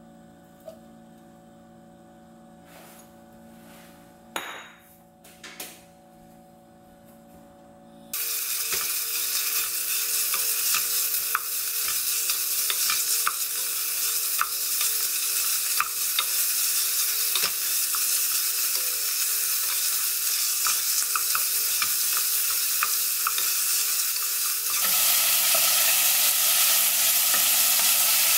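Beef stir-frying in sesame oil in a pot: a steady sizzle, with the wooden spatula clicking and scraping against the pot as it stirs. The opening eight seconds or so are quiet apart from a few soft knocks. Then the sizzle comes in suddenly and grows louder and fuller near the end.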